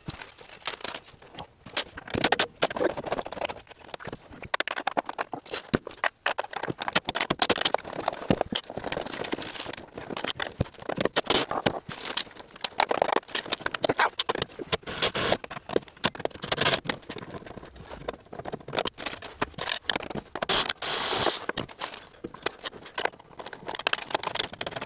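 Plastic zip-lock bag rustling and crinkling, with small metal bolts and tools clicking and scraping, as rudder hardware is handled and bagged. The sounds come in irregular clusters of clicks and rustles throughout.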